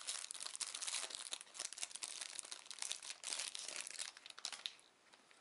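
Thin plastic wrapping being torn and peeled off a small cardboard card box, crinkling and crackling, dying away about a second before the end.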